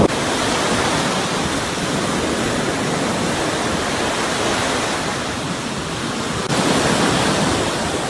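Sea surf breaking and washing onto a sandy beach: a steady rush of waves, growing louder about two-thirds of the way through.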